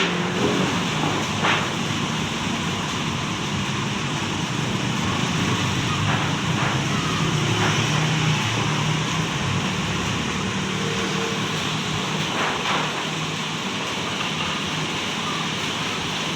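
Strong wind blowing, heard as a steady rushing noise, with vehicle engines passing at times.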